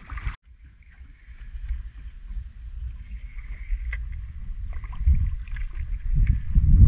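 Low rumble of water slapping against a small boat and wind on the microphone. Irregular splashing grows louder near the end as a hooked black bream thrashes at the surface beside the boat.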